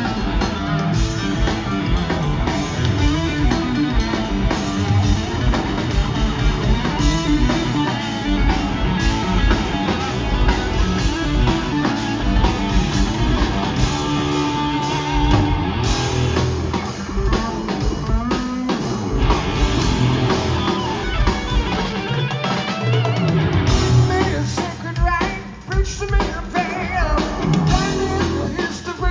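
A rock band playing live and loud: electric bass and a full drum kit driving along under electric guitar.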